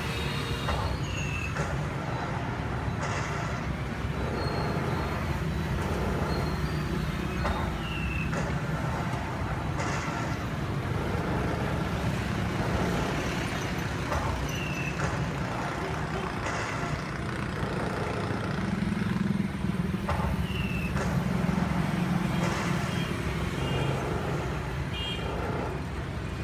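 Steady low rumble like a running engine or road traffic. A short, high, falling chirp recurs about every six or seven seconds.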